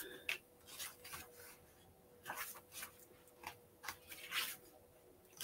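Paper pages being leafed through: a series of short, faint rustles as the pages are turned to find a passage.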